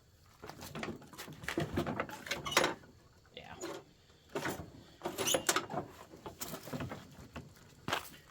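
Irregular knocks, clicks and rustling from someone handling gear by hand; no engine running.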